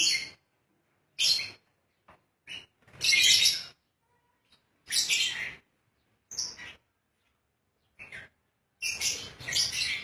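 Lovebirds calling in short, shrill bursts with silent gaps between them, several in quick succession near the end.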